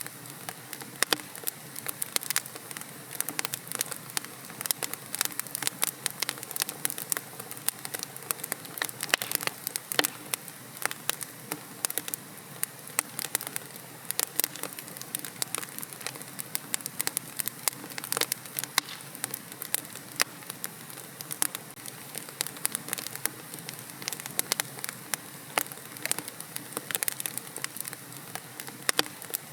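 Wood fire burning in a fireplace: logs crackling and popping with many sharp snaps over a soft steady hiss.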